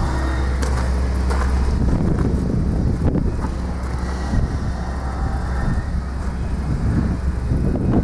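Wind rumbling on the microphone outdoors, over a steady low hum that fades about two seconds in.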